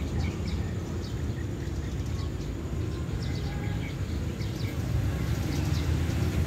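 Birds chirping in short, scattered calls over a steady low rumble that grows a little louder near the end.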